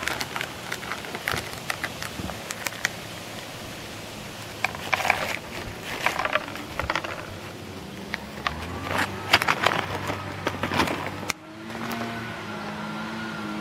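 Shelled peanuts dropped by the handful onto wooden deck boards, making many small clicks and rattles in clusters. Near the end the clicks stop and steady background music with held notes comes in.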